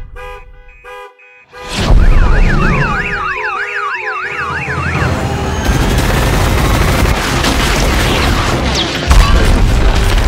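Car alarms going off. First come a few short, repeated horn-like chirps, then a sudden loud blast about 2 s in. After it, several overlapping alarm tones wail up and down, giving way after a few seconds to a dense, loud din of action-film blasts and crashes.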